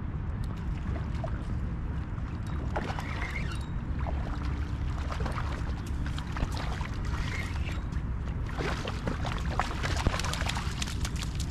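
Water lapping and trickling at the shoreline over a steady low rumble, with scattered light clicks and rustles throughout.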